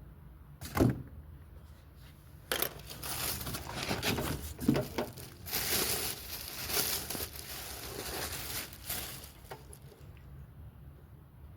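Packaging being handled during unboxing: a single knock about a second in, then several seconds of irregular rustling and crinkling, fading near the end.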